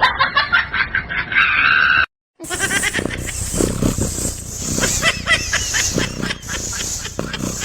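Animal calls: short pitched cries and squeals in two clips, broken by a brief silent cut about two seconds in.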